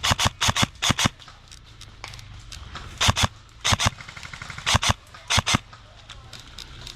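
Airsoft guns firing in short strings of sharp cracks: about a dozen shots in groups of two or three, the first cluster in the opening second and more from about three to five and a half seconds in.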